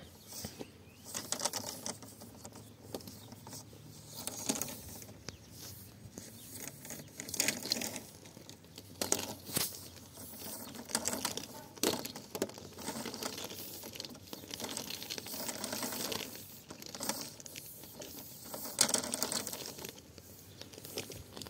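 Irregular rustling and scraping of a long black plastic irrigation hose being uncoiled and dragged over stony ground, in uneven bursts.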